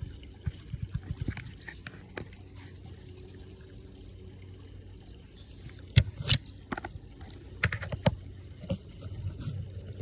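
Creek water trickling steadily, with scattered clicks and knocks of fishing tackle being handled; the sharpest knock comes about six seconds in, with another few around eight seconds.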